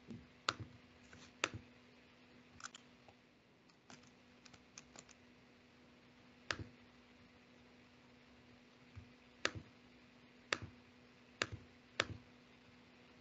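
A dozen or so sharp, scattered clicks of a computer keyboard at irregular intervals, some in quick pairs, over a faint steady hum.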